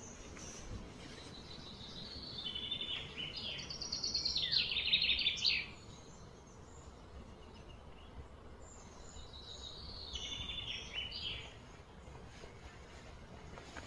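A bird singing outdoors in two phrases of rapid, high trilled notes. The first phrase builds to its loudest about four to five seconds in and stops abruptly. The second, fainter phrase comes a few seconds later, over a steady low background hiss.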